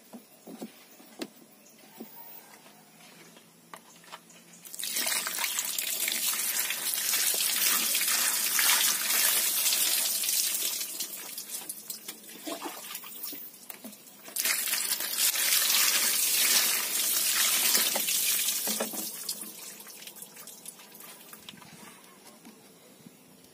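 Water running steadily, as from an open tap, in two long spells: one starting about five seconds in and lasting some seven seconds, then, after a short break, another of about five seconds. Light clicks and knocks come in the quieter stretches.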